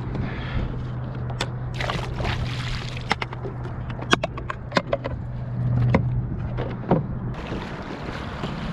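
Scattered knocks and clicks on a plastic fishing kayak and gear, with water sloshing, over a steady low hum that stops about seven seconds in.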